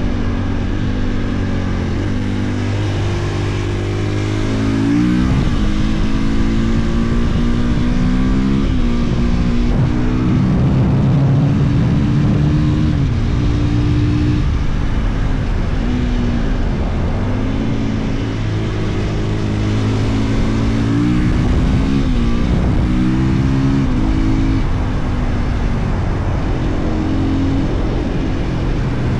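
2022 Husqvarna FE 450's single-cylinder four-stroke engine being ridden. Its note holds fairly steady for about five seconds, then rises and falls again and again as the throttle is opened and closed.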